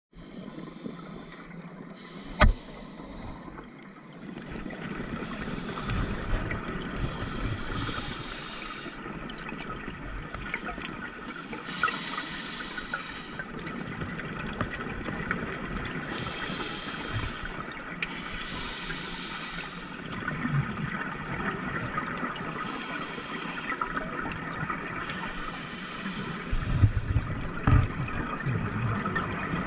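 Underwater scuba sound: a diver breathing through a regulator, with a hissing burst of exhaled bubbles every three to four seconds over a steady underwater hiss. A sharp click sounds about two seconds in and a few knocks near the end.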